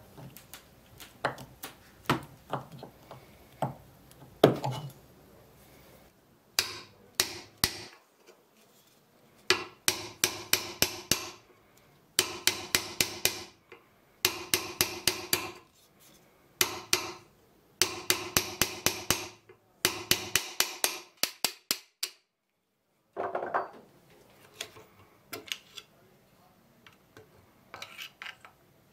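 A few scattered knocks, then repeated bursts of quick hammer blows on ringing metal, about five or six blows a second, with short pauses between bursts.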